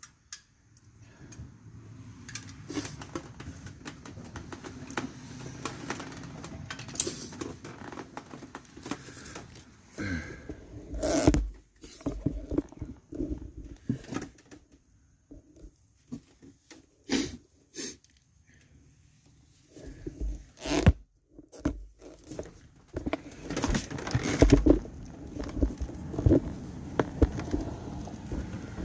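Irregular metallic clicks, taps and scraping from hand tools working on the springs, clips and shoes of a rear drum-brake assembly. Louder knocks come in clusters, with quieter rubbing between them.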